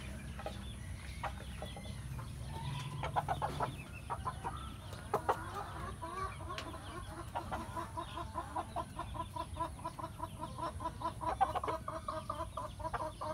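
Chickens clucking: a few sharp taps a few seconds in, then a long, even run of short, rapid clucks for the rest of the time.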